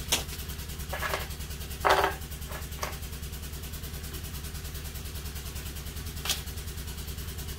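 Light knocks of the M7 bayonet's plastic grip panels being set down on a rubber mat, the loudest about two seconds in and another near the end, over a steady low, rapidly pulsing hum.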